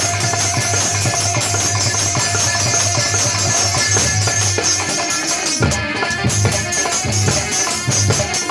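Live Indian devotional music: a portable electronic keyboard played with a steady bass line and a drum beat, over a bright jingling percussion.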